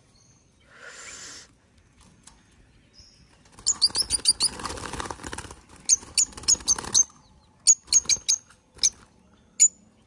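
Young parrot squeaking in protest while held in the hand and having its infected ear swabbed: a quick run of short, shrill squeaks, several a second, over a rustle from about four seconds in, then single squeaks spaced out near the end.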